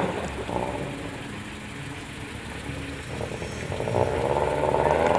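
Subaru Impreza's flat-four boxer engine revving up and down as the car is driven hard through a cone course. It grows louder and climbs in pitch over the last couple of seconds.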